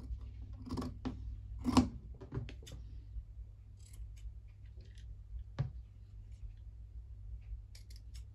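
Fabric scissors snipping through felt in short, separate cuts. Two louder knocks about one and two seconds in, the second the loudest.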